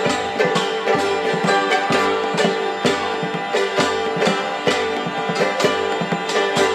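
Medieval-style folk music from a small acoustic ensemble: a steady drone, as from a hurdy-gurdy, under plucked strings and an even, repeating beat.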